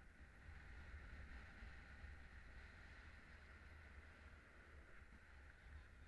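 Faint, steady wind rumble and hiss of airflow over the camera during paraglider flight, with no distinct events.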